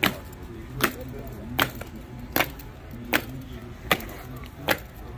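Soldiers marching in step, their boots striking stone paving together in a slow, regular beat, about one stamp every 0.8 seconds, seven in all.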